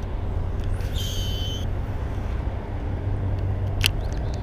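Steady low drone of highway traffic, with a brief high-pitched tone about a second in and a sharp click near the end.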